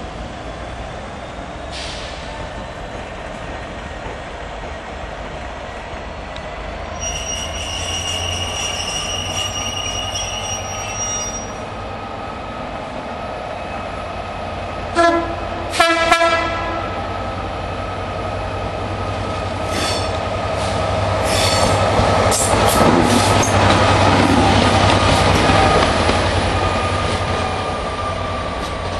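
Class 67 diesel locomotive's two-stroke V12 engine running as it pulls away on curved track, with a high wheel squeal for a few seconds early on. About halfway through it sounds two short blasts on its three-tone horn, the loudest sounds. Later the engine noise swells as it comes close.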